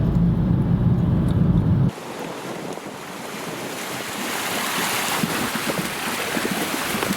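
Low vehicle rumble for about two seconds, then a sudden cut to a rushing wash of wind and sea waves that grows louder.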